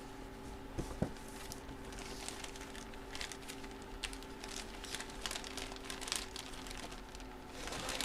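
Light crinkling and rustling of plastic card packaging being handled, with a couple of small ticks about a second in.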